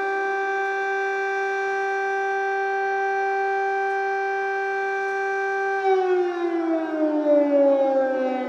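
Ukrainian air raid siren sounding a steady held tone, which about six seconds in begins to fall slowly in pitch as it winds down.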